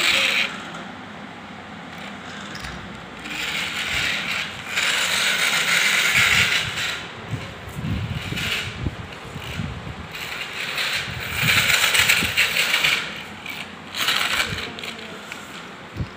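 Plastic toy car's wheels and gear mechanism whirring and rattling as it is pushed along a tiled floor, in several stretches, the longest about three seconds.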